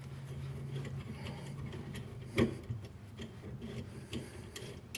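Small metallic clicks and ticks as a set screw and jam nut are threaded by hand onto a shifter gate, with one louder click about two and a half seconds in.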